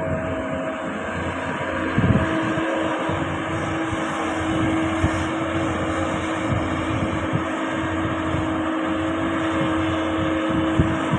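Hydraulic excavator running under work, its engine droning steadily. About two seconds in a steady tone joins it with a clunk, and there is another short knock near the end.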